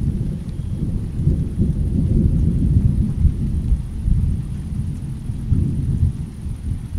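Low rolling rumble of thunder, swelling about a second in and easing off near the end, with rain falling faintly beneath it.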